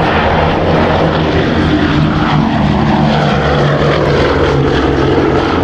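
Boeing B-17G Flying Fortress's four Wright R-1820 Cyclone radial engines droning as the bomber flies low past, the pitch falling slightly as it goes by.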